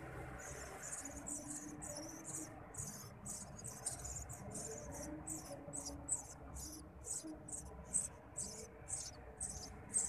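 Eurasian tree sparrow nestlings begging in their nest: a steady run of short, high, thin chirps, about three a second, a few louder ones toward the end.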